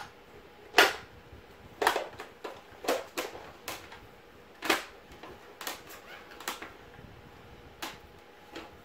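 Hard plastic toy parts of a transforming RV playset clicking and knocking together as it is unfolded and handled: about eight irregular clacks, the loudest about a second in.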